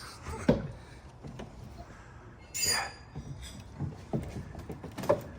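Scattered knocks and light clinks of parts and tools being handled, with a brief high-pitched squeak about two and a half seconds in.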